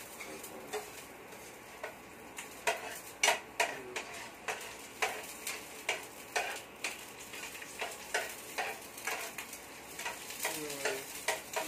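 Chopped garlic sizzling in oil in a nonstick frying pan, with a spatula stirring it and tapping and scraping against the pan in irregular sharp knocks.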